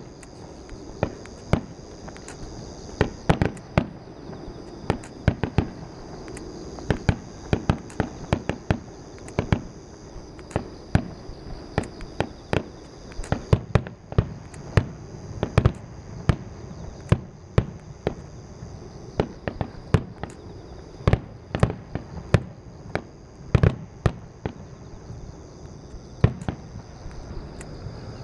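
Starmine firework barrage: aerial shells bursting one after another in quick, irregular succession, often several bangs a second.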